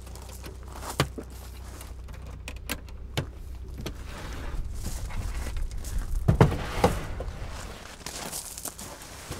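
A few separate knocks and clunks, with a busier cluster of thuds about six to seven seconds in, over a steady low hum.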